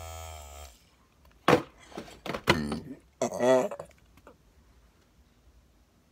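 Small handheld vibrating massager buzzing steadily, cutting off less than a second in. A girl then giggles in several loud bursts behind her hand.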